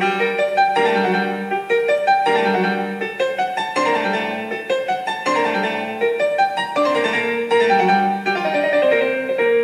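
Background music: a piano-like tune of struck notes and chords.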